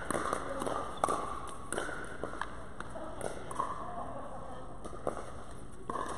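Scattered sharp pops of pickleball paddles striking the ball and shoe steps on the hard court, in an echoing indoor hall, with the hits uneven and no steady rhythm.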